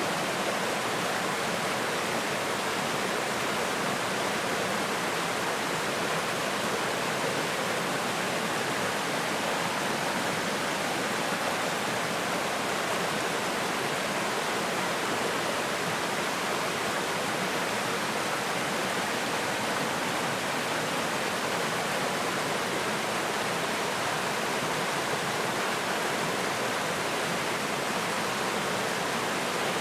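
Small mountain stream rushing over rocks, a steady, even rush of water.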